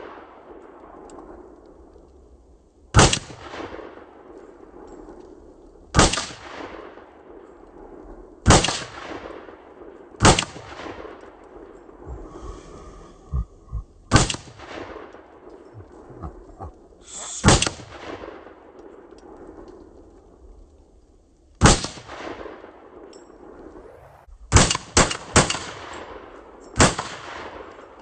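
A 5.56 rifle firing single shots every two to four seconds, then three in quick succession and one more near the end, about eleven in all; each crack trails off in an echo.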